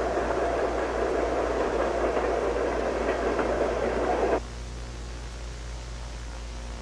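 A steady rushing noise that cuts off abruptly about four and a half seconds in, leaving a low hum and faint hiss.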